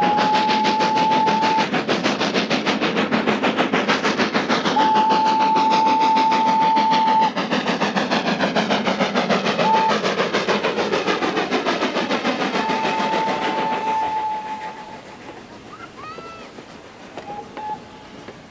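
Steam locomotive working hard with fast, even exhaust chuffs while its whistle sounds the grade-crossing signal: two long blasts, one short, one long. The chuffing fades away about fourteen seconds in, and a faint short whistle toot follows near the end.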